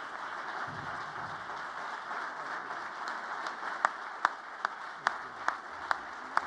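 Audience applauding steadily. From about four seconds in, single sharp claps stand out over it, about two and a half a second.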